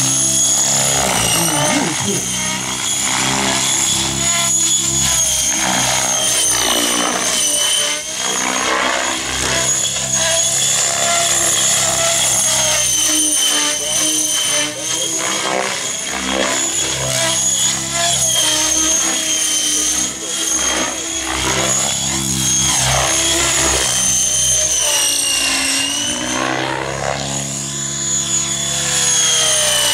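Avant Aurora 90 electric RC helicopter flying hard aerobatics. A steady high whine from the electric motor and drivetrain runs over the rotor blades' beat, and the whole sound sweeps up and down as the helicopter climbs, dives and passes overhead.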